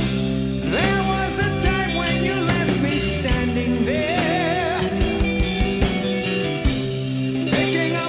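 Rock music with electric guitars and drums, a lead line sliding up near the start and wavering with vibrato around the middle.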